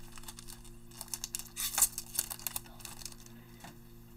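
Shiny plastic wrapper of a Select football card pack crinkling and tearing as it is pulled open, in a few quick bursts about two seconds in, then a single light click near the end.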